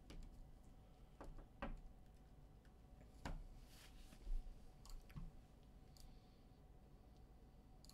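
A handful of faint, irregular clicks over quiet room tone.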